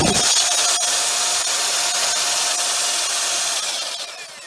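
Belt sander running with a steady whine, its belt grinding over cured Bondo body filler on a vinyl dashboard. Near the end it winds down and the sound fades away.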